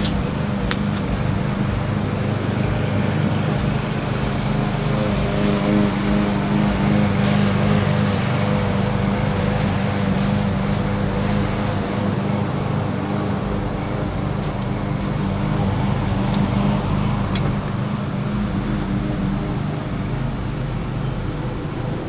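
Steady hum of a running machine, with a droning low tone that holds throughout.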